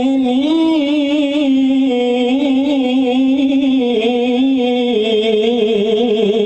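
Male Qur'an reciter in tilawah style drawing out a single long melismatic note, the prolonged vowel of "najzī" ("thus do We reward"), sung in one unbroken breath. The pitch wavers throughout, breaks into quick trills from about four seconds in, and steps down lower near the end.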